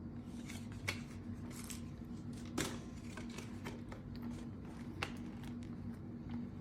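Handling noises of a new baseball glove and its packaging: scattered sharp clicks and brief rustles, the loudest about two and a half seconds in, over a steady low hum.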